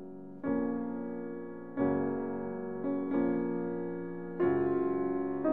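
Background piano music: soft chords struck about every second and a half, each fading away before the next.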